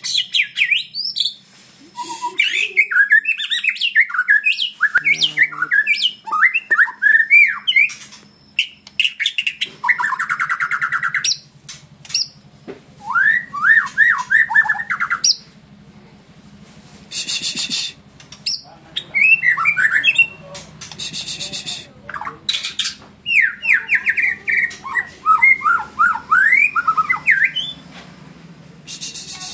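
White-rumped shama (murai batu) singing a varied song of quick whistled phrases that sweep up and down in pitch, broken now and then by harsh rasping notes.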